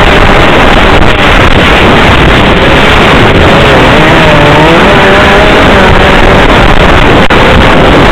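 Snowmobile engine running loud while under way, its pitch rising and falling a few times in the middle.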